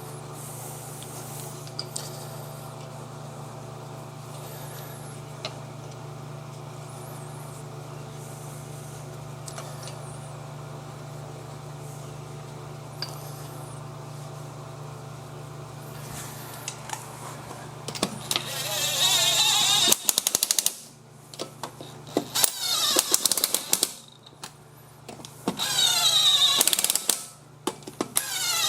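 Impact wrench spinning lug nuts onto a front wheel in several loud bursts, starting near the end, each with a pitch that slides as the nut runs down and hammers tight. Before that, a steady low hum.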